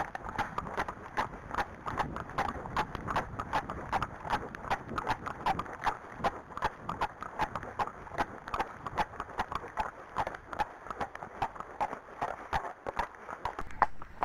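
Hooves of two horses, a black Friesian and a chestnut Arabian, clip-clopping on a tarmac lane: a quick, even run of hoofbeats, about four a second.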